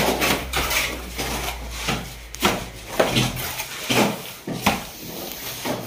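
Masons' trowels scraping and slapping wet cement mortar onto a concrete block wall during hand plastering: a dozen or so irregular rasping strokes, one or two a second.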